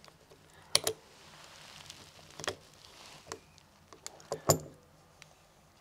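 Handling noise as a small red-dot sight is lined up against a scope's side mount by hand: a few sharp clicks and taps of the parts touching, the loudest near the end, with faint rubbing between them.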